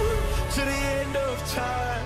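Background pop music: a gliding melodic line over a sustained bass.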